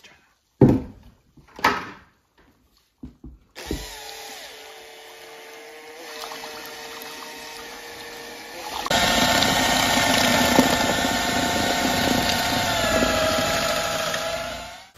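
Two knocks, then an electric drill mixing mortar. It starts about four seconds in and runs slowly, speeds up and gets much louder about nine seconds in, and stops just before the end.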